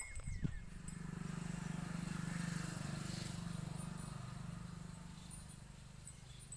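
A motor vehicle's engine humming steadily as it passes, growing louder to a peak a couple of seconds in and then slowly fading.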